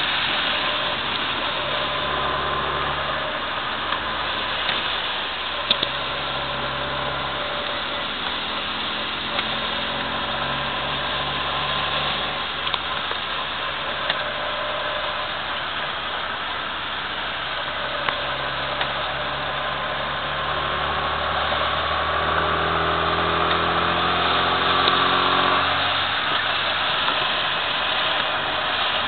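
Cabin sound of a 1998 Mini Cooper at speed on a wet circuit. Its 1275 cc A-series four-cylinder engine runs under load over a steady hiss of tyres on the wet road. The engine note climbs gradually for several seconds past the middle, then drops off near the end.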